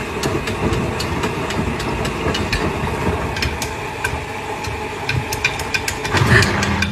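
Front-loading washing machine running, its drum turning laundry with a steady low rumble and many sharp clicks scattered through it. A steady hum comes in near the end.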